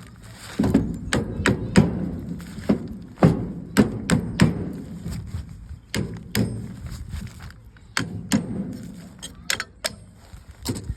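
Irregular hammer blows, about two a second, each a sharp knock with a dull thud, on a removed car alternator to knock its case apart.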